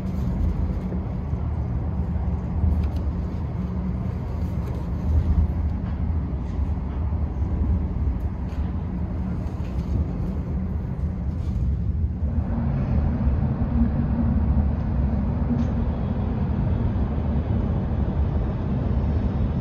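Steady low rumble of a moving passenger train heard inside the carriage, with a few light rustles of paper in the first half. About twelve seconds in, the noise becomes somewhat louder and brighter.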